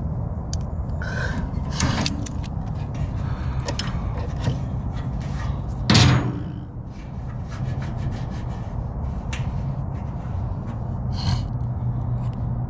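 Small clicks and taps of a fuel shutoff valve being screwed onto a fuel transfer tank's outlet, with one louder knock about six seconds in, over a steady low hum.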